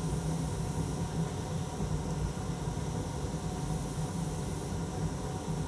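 Hot air rework station blowing steadily through a narrow nozzle onto a small surface-mount component, heating its solder at 370 °C to desolder it: a constant rush of air with a low hum.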